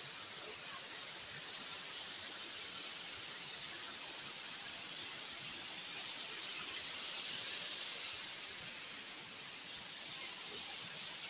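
Small river waterfall: water pouring over a rock ledge into a pool, a steady even rush with no breaks.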